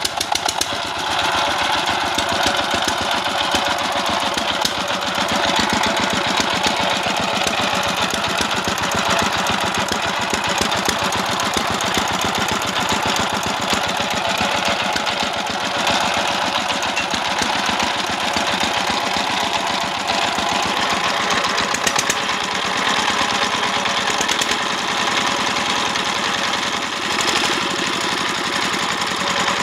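S195 horizontal single-cylinder diesel engine, freshly restarted after a bearing rebuild, coming up to speed within the first second and then running steadily with a rapid knocking beat. It runs fairly rough, which the mechanic thinks could come from its gear set.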